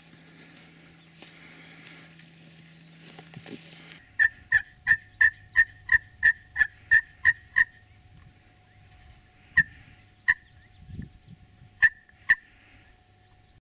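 Turkey call worked by a hunter, sounding a run of about a dozen hen yelps at about three a second, then a few single yelps spaced out. It is a beginner's calling, which he himself calls bad.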